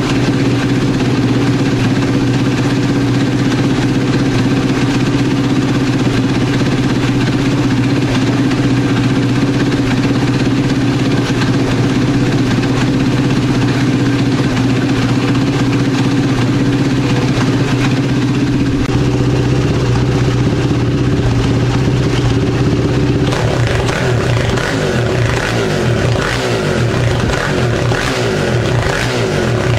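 2007 Polaris Outlaw 525's KTM-built single-cylinder four-stroke engine idling steadily, running on a newly fitted ignition coil and spark plug. About three-quarters of the way through, the revs begin to rise and fall.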